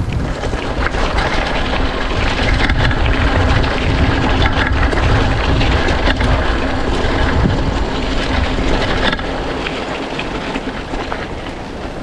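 Mountain bike riding fast over a rough, rocky dirt trail: wind buffets the handlebar-mounted camera's microphone while the tyres crunch and the bike rattles over stones. The noise eases about nine seconds in.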